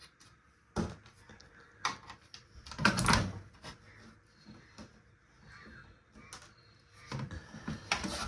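Handling noise from a radio-cassette-CD player being taken apart: a few sharp knocks, a longer rattling clatter about three seconds in that is the loudest, and another cluster of knocks near the end.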